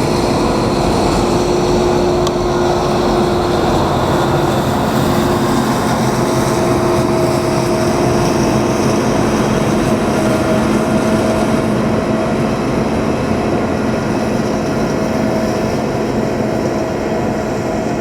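John Deere 9500 combine running steadily, a constant mechanical drone with a steady hum.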